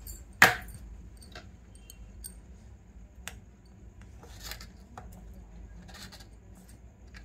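Small objects being handled: one sharp knock about half a second in, then scattered light clicks and clinks, as of a small box, lid and ring being handled.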